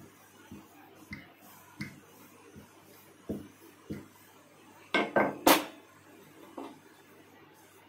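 Wooden rolling pin knocking lightly on the rolling board as bhatura dough is rolled out, a soft knock roughly every 0.7 s. About five seconds in comes a louder clatter of three quick knocks as the pin is put down on the counter.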